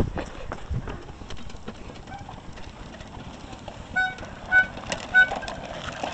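A small plastic toddler tricycle being pedalled on asphalt: its wheels clatter, and three short squeaks come about half a second apart near the end. A knock sounds at the very start.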